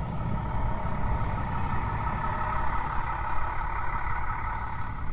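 A steady truck-engine drone with a strong hum, building a little after the start and easing near the end, over a low rumble.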